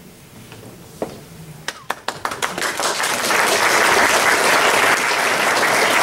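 Audience applause: a few scattered claps about two seconds in, quickly building to steady, full applause from about three seconds on.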